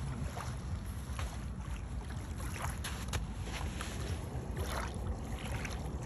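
Steady low wind rumble on the microphone at the shore, with scattered soft crunches from footsteps and handling on sandy, pebbly beach ground.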